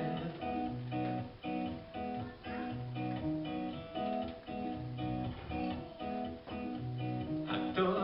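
Acoustic guitar strummed in a steady rhythm, with held low bass notes underneath: an instrumental passage of a song with no singing.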